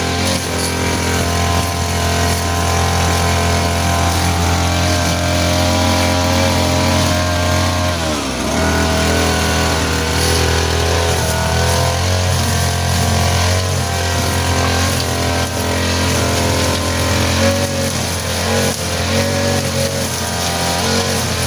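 Small petrol engine of a grass cutter running steadily at working speed. About eight seconds in, its pitch dips sharply and climbs straight back up.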